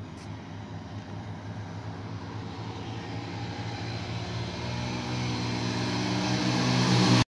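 Two Hero Splendor 100cc single-cylinder motorcycle engines running hard in a drag race as the bikes approach. The sound grows steadily louder and cuts off suddenly near the end.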